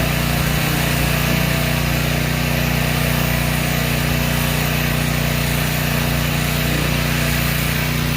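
Stihl RB800 gas pressure washer running steadily, its Kohler engine humming at a constant pitch under the hiss of the water jet.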